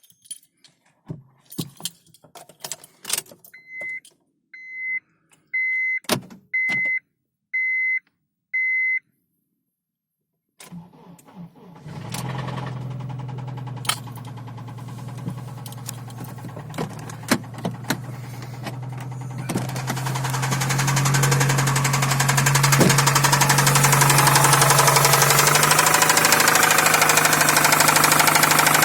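A few clicks and six short, evenly spaced beeps, then a Honda CR-V's K24A1 2.4-litre four-cylinder starts about ten seconds in and idles. From about twenty seconds in it runs louder, with the knocking and chirping that the owner names as its fault.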